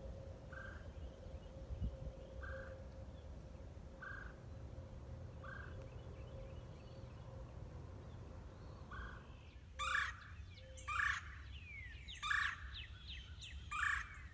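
Backyard birds calling. A short, soft call repeats every couple of seconds. From about ten seconds in, a bird starts a loud, harsh call, repeated about once every second and a bit, while other birds add quick whistled notes.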